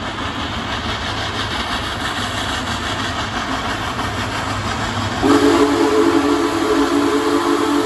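Union Pacific Big Boy 4014 steam locomotive running toward the listener with a steady rush of exhaust and rail noise. About five seconds in its steam whistle starts a long chord of several tones that holds on.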